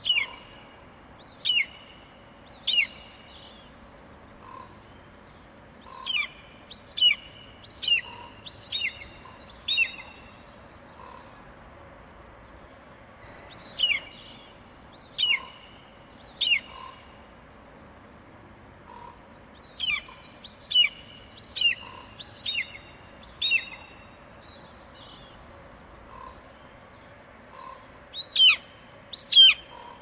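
Eagle calling: short, high, piping notes that each fall in pitch, in bursts of three to six with pauses of a few seconds between bursts.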